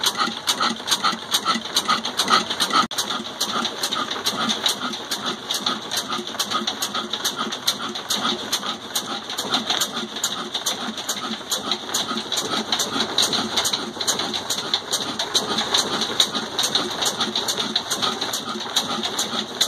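Old Ruston Hornsby single-cylinder diesel engine running steadily, with an even beat of a few strokes a second. It is under load, driving a belt-driven chakki flour mill through its flywheel.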